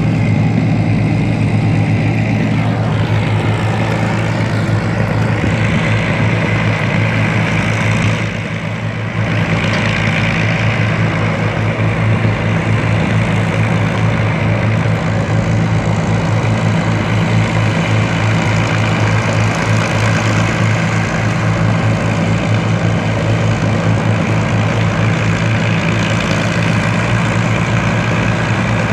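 Avro Lancaster's four Rolls-Royce Merlin piston engines running steadily, with a brief dip in loudness about eight seconds in.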